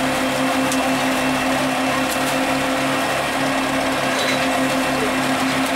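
Fishing boat's engine running steadily with a regular low throb, over the splashing of a netful of fish thrashing at the surface as the set net is hauled.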